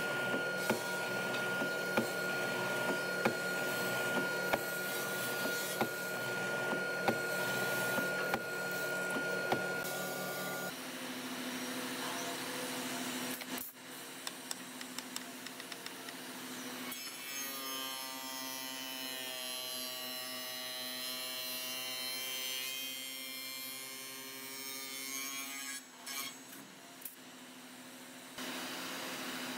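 Band saw cutting through a thick hardwood block with a steady whine for about the first ten seconds. Then a spindle moulder's cutter head runs and shapes a clamped hardwood piece, its tone shifting through the middle stretch.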